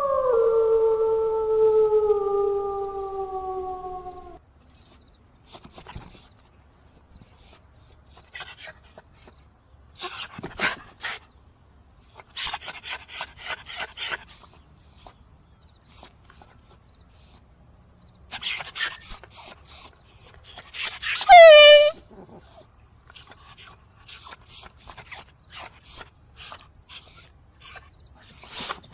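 A dog's howl trailing off and falling in pitch, then dogs whimpering and yipping in many short, very high-pitched calls, with one longer whine sliding down in pitch about 21 seconds in.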